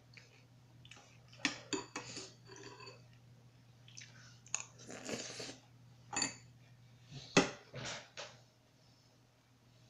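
A spoon clinking sharply against a cereal bowl several times, with a mouthful of Fruity Pebbles cereal and milk being slurped and chewed. The loudest clink comes a little past seven seconds in.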